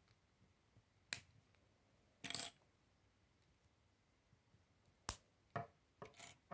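Small Lego plastic pieces being handled and pressed together by hand: a few sharp clicks, one about a second in and several more near the end, with a short rustle of pieces a little after two seconds.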